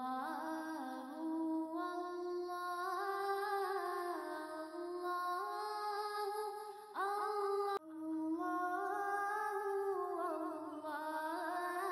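Background music: a wordless hummed vocal melody that rises and falls slowly. About seven seconds in, a louder, brighter held tone comes in and then cuts off abruptly.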